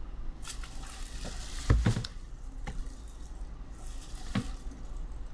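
Steady low hum and faint hiss of room noise, with a few soft knocks, the loudest a double knock about two seconds in and a smaller one near the end.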